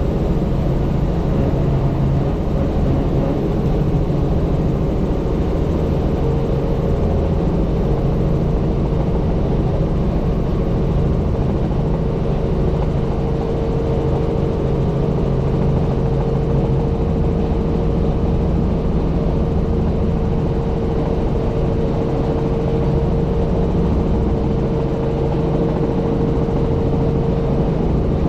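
Helicopter in steady flight: constant rotor and engine noise with a steady hum, unchanging in level.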